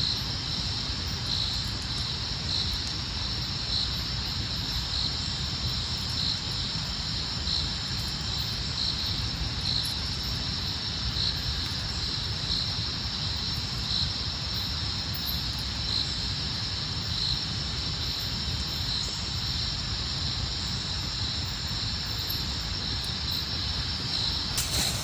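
Steady rain falling, with an insect chirping regularly in the background, about three chirps every two seconds.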